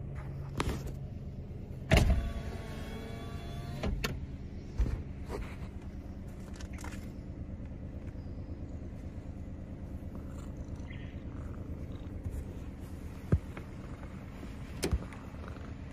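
Steady low hum of a car idling, with scattered knocks and bumps as a tabby cat clambers over a person in the seat. About two seconds in comes a loud thump, followed by a whine lasting about two seconds.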